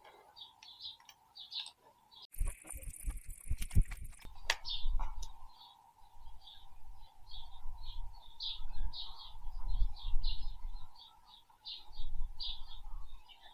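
Small birds chirping over and over, with low knocks and thuds of work going on close by, and a short hiss a couple of seconds in.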